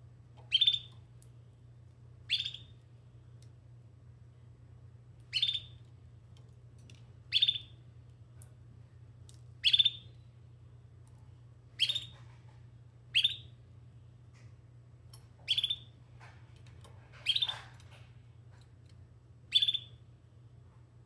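Domestic canary giving short, sharp chirping calls, one every one to two and a half seconds, about eleven in all.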